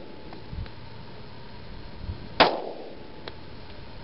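A single pistol shot from a Glock 20 SF chambered in 10mm Auto, about two and a half seconds in: a sharp report with a brief decaying tail. Faint low thumps come before it.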